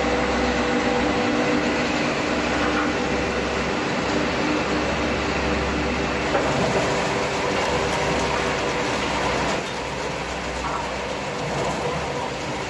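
Log debarker running with logs feeding through it: a steady mechanical rumble and clatter as the rotor strips off the bark, over a steady motor hum, easing off slightly about nine and a half seconds in.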